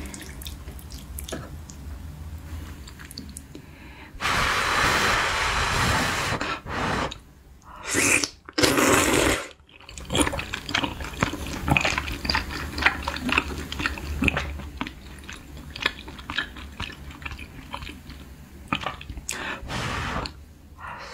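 Close-miked wet chewing and slurping of spicy beef-intestine hot pot with glass noodles, with small clicks throughout. A long loud slurp comes about four seconds in, and two shorter loud ones around eight and nine seconds.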